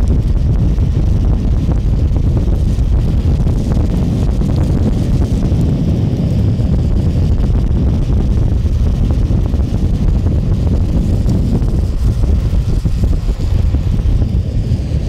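Heavy wind noise on a microphone travelling fast down a road, a steady low rush.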